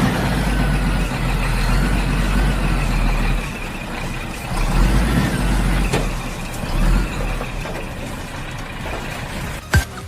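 Heavy vehicle engine sound, a truck-like diesel rumble used as a sound effect for a miniature tractor, swelling and easing a few times. A sharp click near the end.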